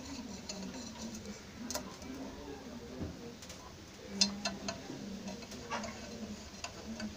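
Small metallic clicks and clinks of loose nuts and bolts being picked up and handled while parts are fitted to a homemade jet engine's compressor housing. The clicks are irregular, with sharper ones about two, four and six seconds in.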